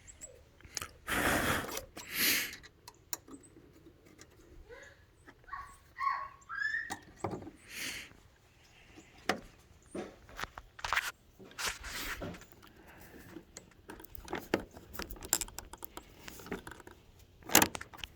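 Scattered clicks, knocks and rattles of small hardware and tools being handled, with a brief squeak about six seconds in.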